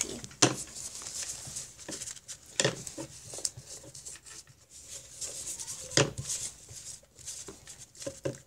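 Pokémon trading cards being handled and gathered on a tabletop: scattered taps and slides of the card stock, with sharper taps about half a second in and about six seconds in.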